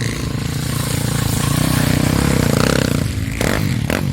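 Off-road vehicle engine running steadily and growing a little louder. About three seconds in it breaks off, with a few short knocks or clatter.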